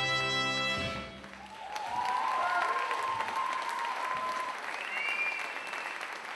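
A big band with saxophones, brass and drums holds its final chord, which cuts off about a second in. The audience then applauds and cheers.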